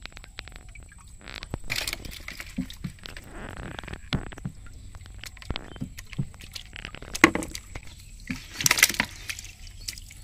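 Water splashing, with scattered knocks and clicks, as a ring net and a catch of shrimp and an eel are handled in a bucket of water. The loudest splashes come about seven and nine seconds in.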